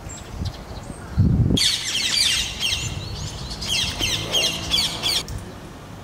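Common kingfisher calling: a rapid run of shrill, high, down-slurred whistles lasting about three and a half seconds. The run starts just after a low thud.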